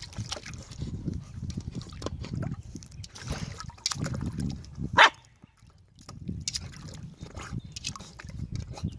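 Puppy splashing about in water after a floating ball, with one loud, short, sharp bark about five seconds in.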